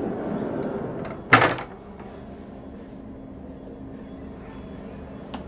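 Cabin balcony sliding door being slid open, with a loud clunk about a second and a half in; a steady low hum follows.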